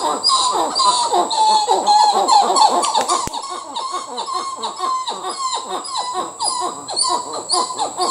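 Dusky titi monkey (Callicebus moloch) calling: a long unbroken run of short, falling notes, about three a second, the loud repetitive call that titis use to claim their territory.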